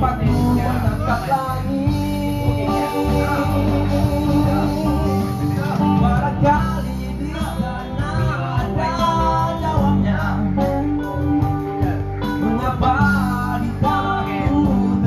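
A man singing into a handheld microphone over a live band with guitar, amplified through a PA.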